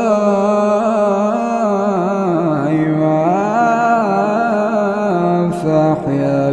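A male reciter chanting the Quran in melodic tajweed style. He draws out one long ornamented phrase whose pitch slowly rises and falls, then breaks briefly near the end and starts a lower phrase.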